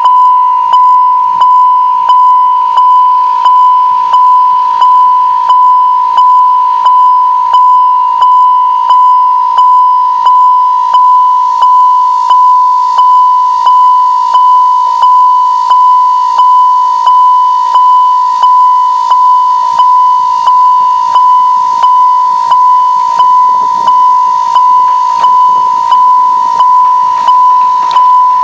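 Railway level-crossing warning bell ringing loudly and without a break: one high ringing note struck about three times every two seconds, each strike fading into the next.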